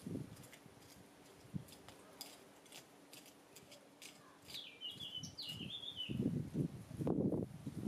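A small hand hoe scratching and scraping through garden soil, with scattered light ticks at first and louder scraping near the end. A bird sings a short chirping phrase about halfway through.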